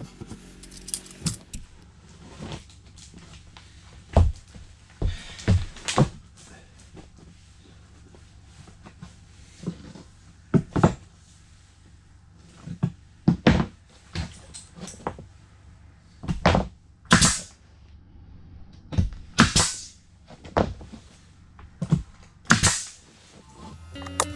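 Pneumatic nail gun fastening wall boards: irregular sharp shots, often a second or two apart, several with a short hiss of air, among softer knocks of the boards being handled.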